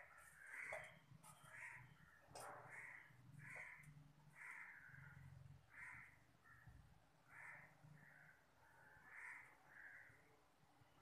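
Faint bird calls, caws repeating about once a second, with a single click a couple of seconds in.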